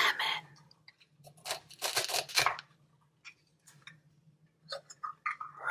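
Short clicks and rustles of small toys being handled, with a denser cluster about two seconds in, over a faint steady hum.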